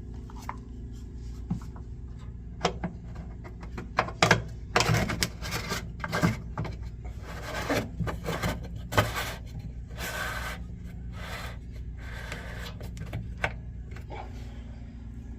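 Whirlpool front-load washer running with a steady low hum, with irregular scraping, rubbing and clicking noises over it, busiest in the middle.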